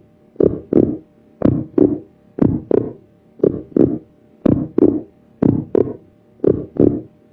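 A slow rhythmic beat of paired short hits, about one pair a second, over a faint steady hum.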